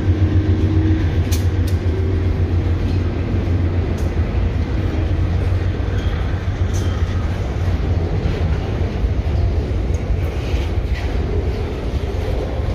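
Diesel-electric freight locomotives, among them a GE AC44i, rolling slowly past close by: a heavy, steady engine drone, with a few sharp clicks from wheels over the rail. Near the end the locomotives give way to loaded grain hopper cars.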